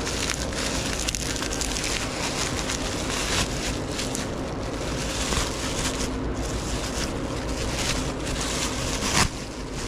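Plastic bubble wrap crinkling and rustling as it is pulled open and peeled off by hand, with one sharp snap near the end.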